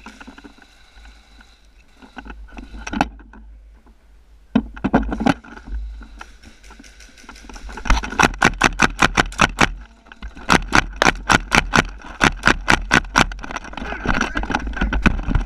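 Airsoft gun firing: two long strings of rapid sharp shots, about seven a second, starting about eight seconds in and again about ten and a half seconds in, with a few scattered clicks earlier.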